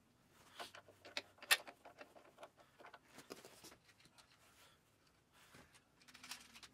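Light metallic clicks and taps as hands handle the steering arm and tie rod end of a garden tractor's front steering linkage. The sharpest click comes about a second and a half in, with a few more small clicks near the end.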